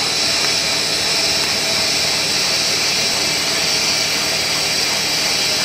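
FTPE-1200 air bubble film machine running, making 30 mm bubble film: a steady, even machine noise with a strong high hiss.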